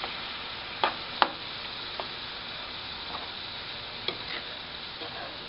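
Beef brains frying in hot oil with chopped onion in a skillet, a steady sizzle, while a metal utensil stirring them knocks against the pan about four times, the sharpest a little over a second in.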